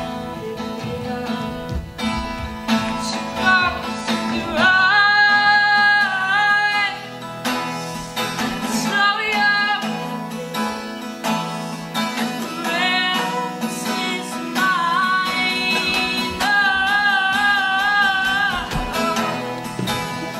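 A woman singing to her own acoustic guitar accompaniment, with two long held notes that waver slightly, one about five seconds in and one about sixteen seconds in.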